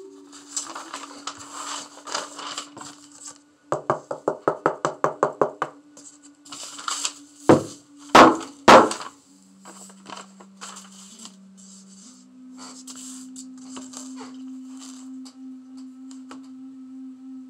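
Sand being poured from a small cup onto a painting board, a grainy hiss, followed by a quick run of taps, then three loud sharp knocks. A steady low hum runs underneath and shifts pitch twice.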